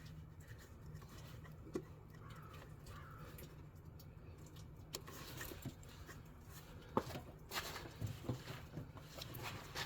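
Faint scattered clicks and light knocks of parts being handled, a few of them close together in the last few seconds, over a low steady hum.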